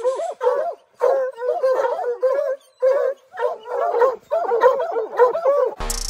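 Hunting hounds whining and yipping in quick clusters of short, rising-and-falling cries. Music with a heavy drum beat comes in just before the end.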